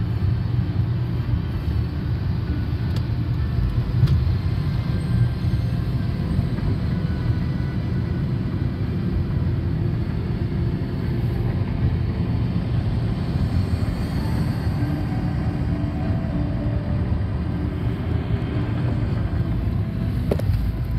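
Steady low road rumble of a car driving on a highway, heard from inside the cabin: tyre and engine noise.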